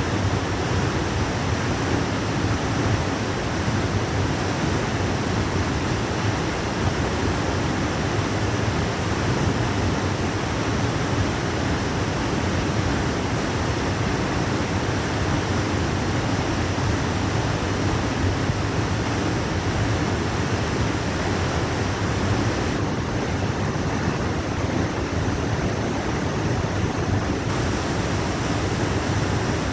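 Waterfall: water falling and crashing in a steady, unbroken rush.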